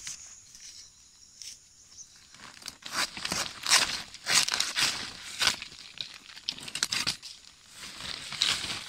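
Kithul palm flower strands and a cloth sack rustling, crunching and tearing as the flower cluster is cut and gathered into the sack by hand. The sound comes as a run of short bursts from about three seconds in, dies down for a moment after seven seconds and picks up again near the end.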